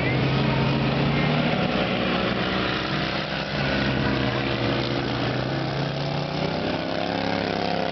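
Small engines of several stock-engine racing lawn tractors running hard around the track: a steady engine drone whose pitch shifts slightly up late on as the machines come round.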